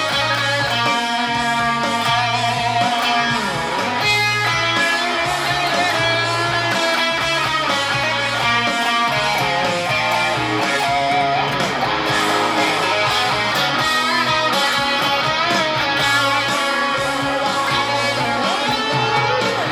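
Grover Jackson electric guitar played with a pick, rock chords and riffs, over a full rock-band backing track with a steady bass line.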